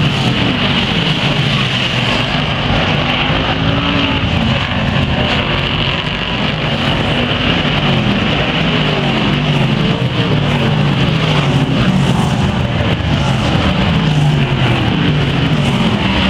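BriSCA Formula One stock cars' V8 engines racing past in a pack. The engine notes rise and fall in pitch, one car after another, without a break.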